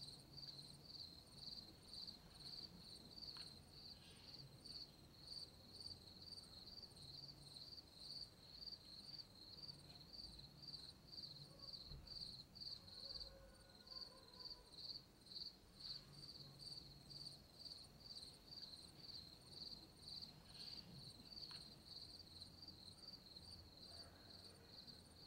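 A cricket chirping faintly in a steady, even rhythm of about three high chirps a second.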